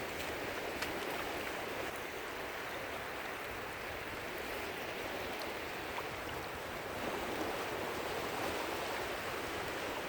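Surf washing steadily on the beach, an even wash of noise with a couple of faint clicks.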